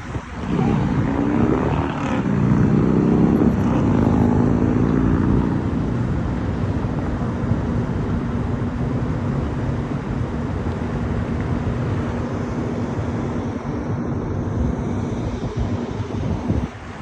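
A motor engine drones, loudest in the first few seconds with its pitch shifting, then holding a steady hum that stops shortly before the end. Wind buffets the microphone throughout.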